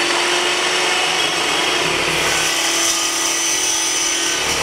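Ironton 14-inch dry cut metal chop saw, its carbide-tipped blade spinning and cutting through thin-wall steel square tube: a loud, steady cutting noise as the teeth take the metal off a chip at a time rather than grinding it.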